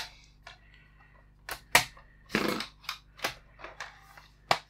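Plastic DVD case and disc being handled: a string of sharp clicks and snaps, the loudest about a third of the way in and just before the end, with a short scraping rustle about halfway.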